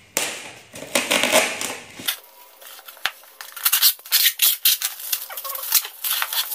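Box cutter blade scraping along the packing tape on a styrofoam box for about two seconds, then the tape being peeled off the styrofoam in a quick run of crackling rips.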